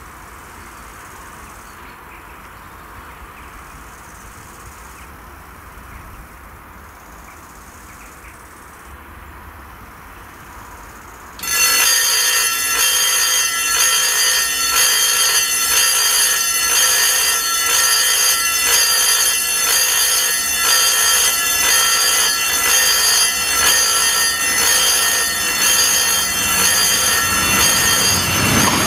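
Level-crossing electric warning bell starting abruptly about a third of the way in and ringing loudly and continuously, with only quiet outdoor background before it. It rings while the crossing's '2 Züge' sign is lit, warning that a second train is coming.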